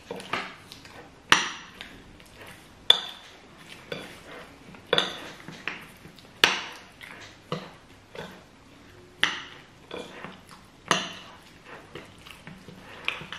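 Metal spoons clinking and scraping against plates of food as two people eat, with a sharp, ringing clink every second or two and quieter scrapes between.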